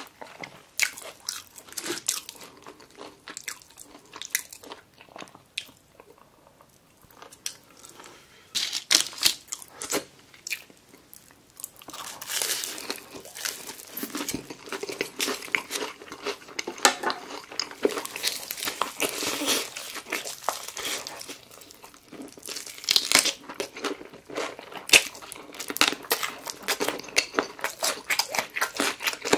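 Crispy deep-fried chicken crunching as it is bitten and chewed, in many sharp crackles. It goes quieter for a few seconds before the crunching thickens again.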